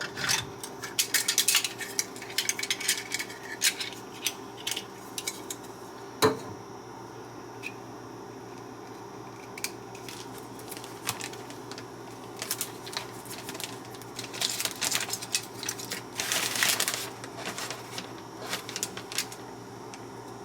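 Dishes and cutlery clinking and clattering in a run of light knocks, bunched at the start and again near the end, with one sharp knock about six seconds in, over a steady low hum.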